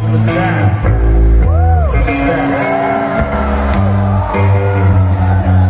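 Rock band playing live through a festival PA: electric guitars, bass and drums, with notes that slide up and down in pitch over a steady bass line.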